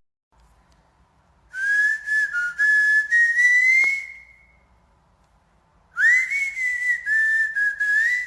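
A high, wavering whistle, held for about two and a half seconds, then after a pause of about two seconds starting again and holding to the end. A faint click falls near the end of the first whistle.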